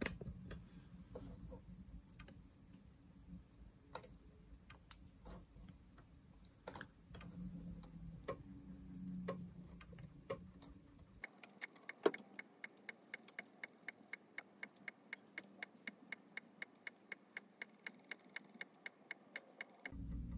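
A 3.5-inch IBM PC floppy drive, run from an Amiga, clicking as its head steps from track to track while it formats and verifies a disk. The clicks are irregular at first, then turn into a steady ticking of about four to five clicks a second from about halfway through.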